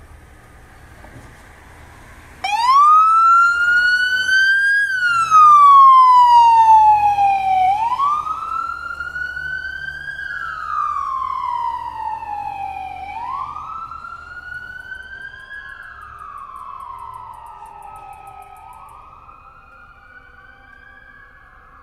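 Fire utility truck's siren sounding a slow wail, cutting in suddenly about two and a half seconds in. Its pitch rises and falls about once every five and a half seconds, and it fades as the truck drives away.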